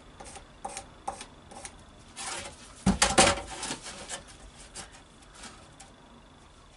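Timber and a handsaw being handled on a work bench: scattered light knocks and scrapes, with a louder clatter about three seconds in.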